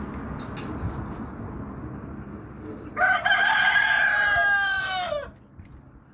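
A rooster crowing once, a single loud call of a little over two seconds that starts about three seconds in and drops in pitch at the end.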